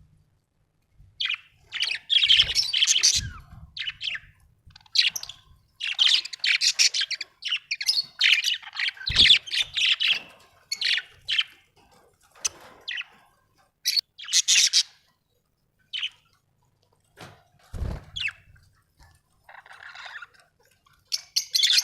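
Budgerigars chattering and chirping in quick bursts of high, rapid chirps and squawks, with short pauses between bursts. A few soft low thumps are mixed in.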